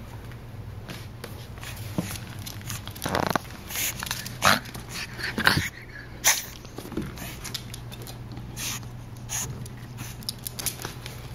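An 11-week-old pug puppy scrabbling about right at the camera on a hardwood floor: scattered clicks and knocks, with several louder short rustling bumps in the middle as it noses at and climbs over the camera.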